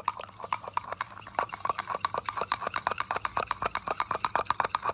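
A rapid, even run of short sharp clicks, about ten a second.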